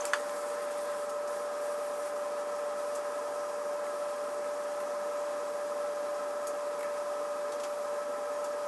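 Small butane micro torch running, a steady hiss carrying a constant whistle-like tone, as its flame heats the butted ends of a TPU cord in a metal splicing clamp to fuse them. A few faint ticks.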